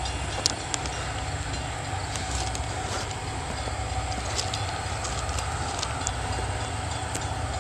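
Metra diesel locomotive approaching from a distance: a steady low rumble with a faint constant hum and scattered small clicks.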